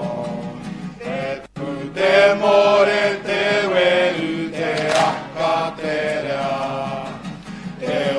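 A group of voices chanting a Māori chant in unison, with long held notes and a short break about a second and a half in.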